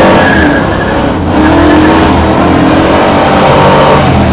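Ford Mustang engine revving loudly, its pitch rising and falling, with a brief drop about a second in before it climbs again.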